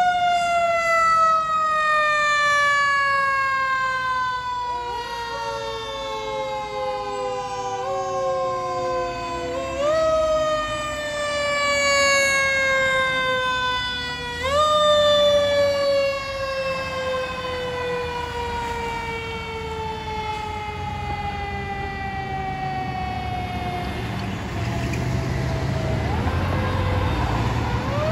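Fire apparatus sirens: a siren rises sharply in pitch at the start, then falls slowly over some twenty seconds, pushed briefly back up several times. A second siren tone joins about five seconds in, and a siren rises again near the end.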